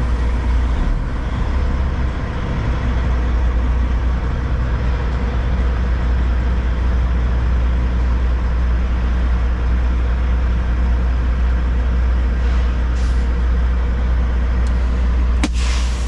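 Kenworth W900 semi truck's diesel engine droning steadily with road noise, heard from inside the cab while driving, with a sharp click near the end.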